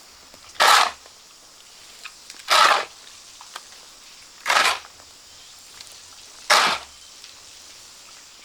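Shovel scraping through a sand-and-cement mix in even strokes, five of them about two seconds apart: hand-mixing concrete.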